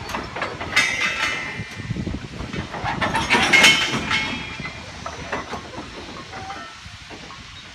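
Loose-coupled goods wagons behind a GWR Large Prairie tank engine clanking and squealing as the train moves slowly along the track, with a steady hiss of steam. The loudest clanks and squeals come about one second and three and a half seconds in, then die down.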